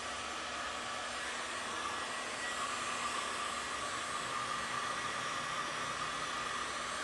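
Heat gun blowing steadily, warming a WoodUbend moulding so that it becomes flexible; an even hiss with a faint high whine.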